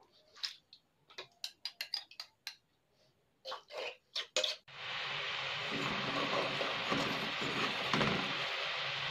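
A dozen or so sharp clinks of bowl and utensil against a pot as tapioca pearls are tipped and scraped into brown sugar syrup. About five seconds in, a steady hiss and crackle of the brown sugar syrup bubbling around the pearls over low heat takes over.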